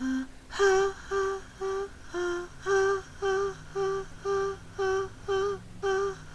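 A woman humming short wordless notes a cappella, about two a second, mostly on one pitch with one lower note about two seconds in.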